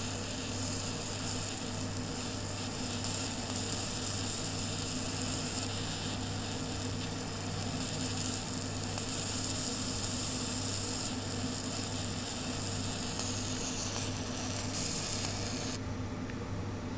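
Laser engraver marking a gold plate: a steady high sizzling hiss over a low machine hum. The hiss cuts off suddenly near the end as the laser stops firing, and the hum carries on.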